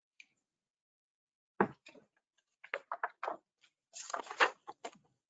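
A soft knock about a second and a half in, then a scatter of short clicks and rustles near the end.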